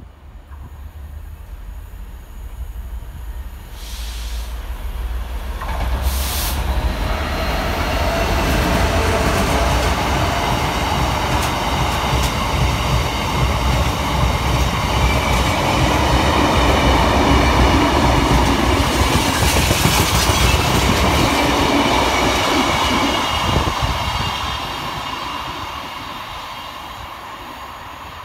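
Freight train hauled by a Class 66 diesel locomotive running through, its wagons' wheels rumbling and clattering over the rail joints with a thin high squeal. The sound builds over the first few seconds, is loudest through the middle and fades away near the end.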